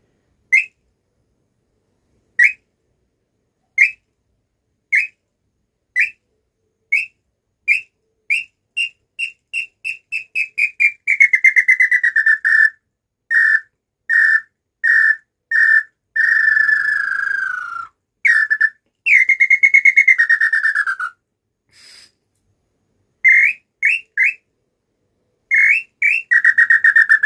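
Handmade wooden tinamou call (pio) blown by mouth, its sound freshly reset after it had stopped sounding. It gives spaced whistled notes that speed up into a fast run falling in pitch, then two long falling notes and a few short notes near the end. It imitates the lambu pé-roxo (tataupa tinamou), a hybrid call for both pé-verde and pé-roxo.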